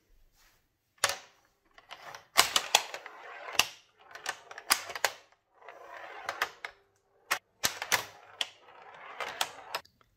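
A metal ball rolling over the playfield of a wooden toy pinball machine, with a scatter of sharp wooden clacks and knocks as it hits the rails, obstacles and flippers. Stretches of rolling rumble come and go between the clacks.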